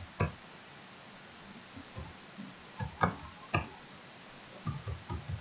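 Scattered clicks and taps of a computer keyboard and mouse as values are typed in, a few sharp ones standing out over faint steady hiss.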